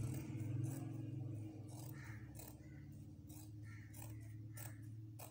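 Tailor's scissors snipping through a folded double layer of cloth along a curved cut, a series of short crisp snips about two a second, over a low steady hum.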